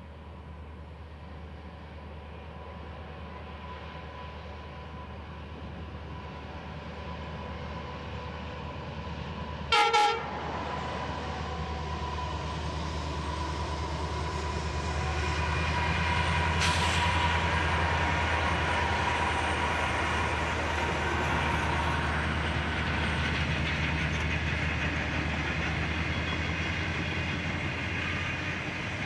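Freight train of NR and AN class diesel-electric locomotives running, their rumble growing steadily louder as they approach and pass, with a short sharp horn blast about ten seconds in. In the second half, a long string of steel wagons and container flats rolls past.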